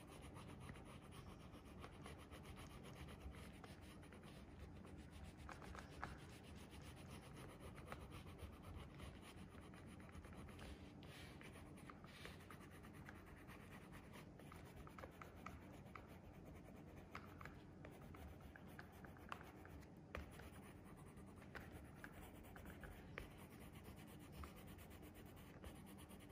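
Faint scratching and rubbing of an orange oil pastel stroked back and forth across paper while colouring, with a few light ticks scattered through.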